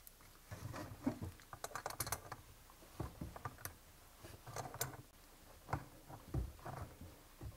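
Faint, irregular metal clicks and taps of channel-lock pliers working a supply-tube nut onto a brass recirculation pump's fitting as it is tightened.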